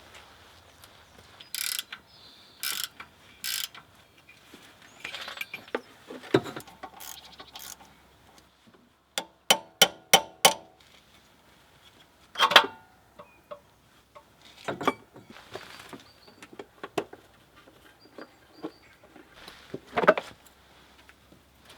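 Hand tools working on car-engine metal: scattered clinks and knocks, with a quick run of ratchet clicks about nine seconds in and a sharper knock or two later.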